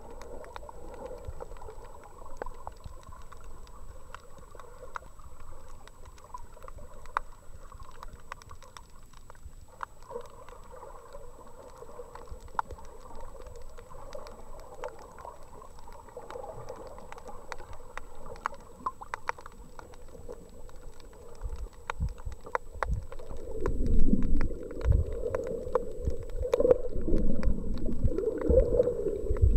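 Underwater sound picked up by a camera held below the surface: a muffled water hiss with many faint scattered clicks and crackles, over a faint steady high whine. From about 22 seconds in, louder, uneven low rumbling as water moves hard around the camera.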